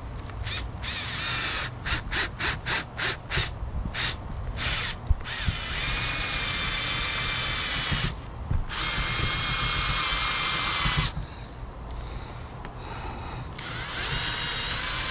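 Cordless drill-driver driving screws down through a roof-fan mounting sleeve: about nine quick trigger pulses, then three longer steady runs with a constant whine. The screws are going into metal and need pre-drilling, as the installer judges.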